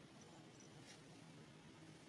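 Near silence: a faint low hum, with a soft tick about a second in.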